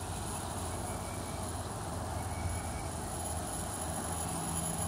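Steady background hum and hiss with no distinct event; a faint low tone joins about four seconds in.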